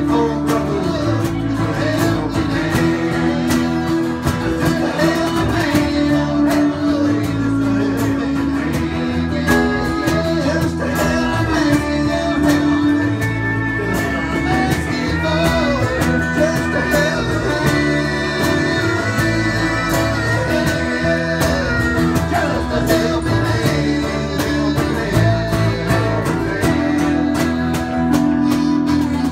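Live country band playing an instrumental stretch of a song: acoustic guitar strumming and electric bass under a wavering, bending harmonica lead.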